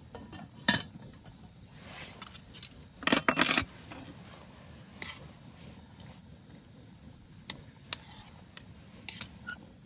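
Aluminium cooking pot and pot gripper clinking and clattering as the pot is handled and lifted off a small stove. Sharp metal knocks come irregularly, loudest in a quick cluster about three seconds in.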